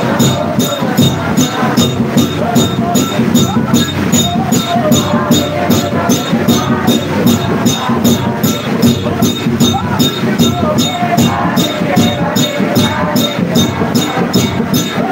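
Congregation singing a worship song over a steady, even beat of claps and percussion, about three strokes a second.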